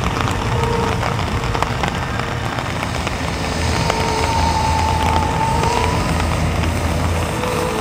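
Heavy rain falling steadily, a dense hiss of drops, with a low hum and faint held tones underneath.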